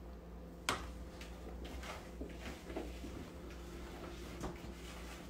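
One sharp knock about a second in, then light taps, scrapes and rattles of a spoon and blueberries in a plastic container as the berries are tossed in flour.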